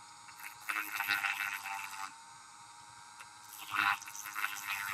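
Dremel rotary tool running at low speed, its cut-off wheel grinding the edge of a thin aluminum bracket in two short passes, one about a second in and one near the end.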